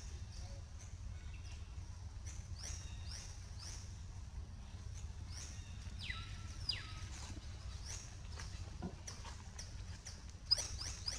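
Rapid high-pitched animal chirps, each sliding quickly downward, repeating about twice a second over a low steady rumble. A louder, sharper call comes near the end.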